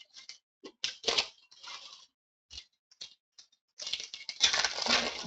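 Foil trading-card pack wrappers crinkling and cards being handled: a few short crackles, then a longer stretch of crinkling from about four seconds in.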